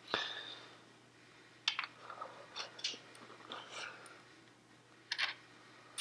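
Small metal parts clinking, rattling and knocking as the dirt bike's rear wheel is fitted: a knock at the start, then scattered bursts of clicks and rattles.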